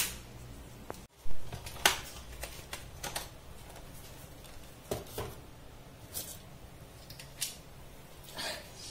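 Scattered light clicks and knocks, about a dozen at irregular intervals, the loudest about a second in, over a faint low hum.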